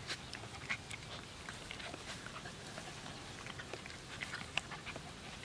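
Puppies giving short, scattered whimpers and yips, mixed with light irregular clicks and rustles.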